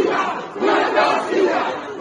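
A crowd of many people shouting at once, their voices overlapping in a loud, continuous din.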